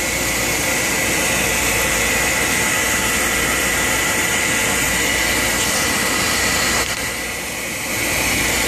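Combustion-air inducer fan of a two-stage natural gas rooftop furnace running steadily with a whine, pre-purging before the igniter sparks. Briefly quieter about seven seconds in.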